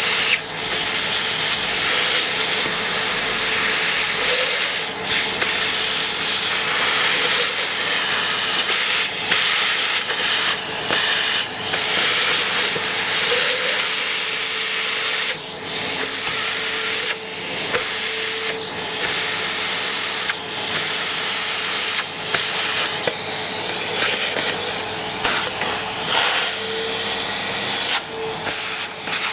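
Ariete Handy Force vacuum cleaner running: a loud, steady rush of air over a faint motor hum. The sound dips briefly many times, as the airflow is interrupted.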